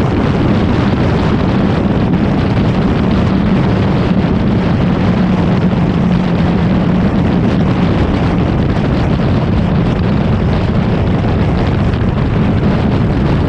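Kawasaki Ninja sport bike's engine running at a steady cruising speed, with wind rushing over the mic.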